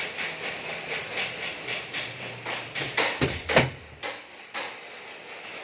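Rapid rhythmic knocking, about four knocks a second. A few louder sharp knocks come about three seconds in, then the knocking fades.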